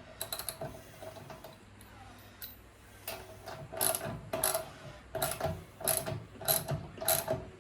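Ratchet wrench clicking in repeated short strokes while a nut is run onto the mini bike's rear axle bolt; the strokes come regularly from about three seconds in.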